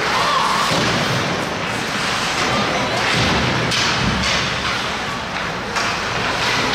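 Ice hockey game in an indoor rink: steady hiss of skates on ice and rink noise, with several sharp knocks of sticks and puck around the middle and near the end.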